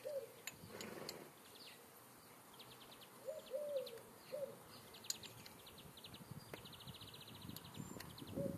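Faint outdoor birdsong: soft cooing notes repeated a few times, with bursts of a fast high ticking trill, and a few light clicks here and there.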